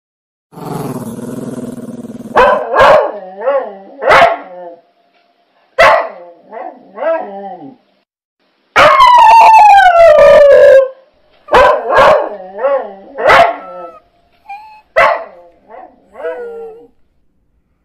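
Dogs barking and yipping in short clusters, with one long howl about nine seconds in whose pitch falls steadily over two seconds. A rough, low, noisy sound comes first, about half a second in.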